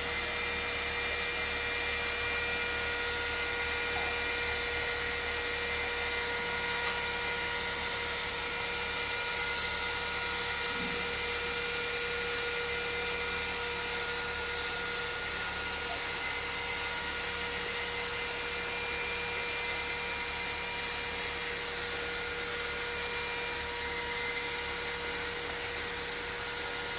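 Hot air welding machine running steadily: the hum and whine of its motor and hot-air blower over a steady hiss.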